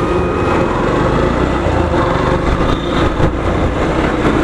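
Yamaha FZ 150 motorcycle's single-cylinder engine running steadily while it is ridden along a road, heard from the rider's position.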